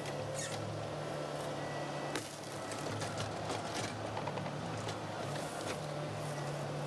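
Volvo 140 excavator's diesel engine running steadily under load, with repeated sharp cracks and snaps of brush and branches breaking as trees are cleared; the loudest crack comes about two seconds in.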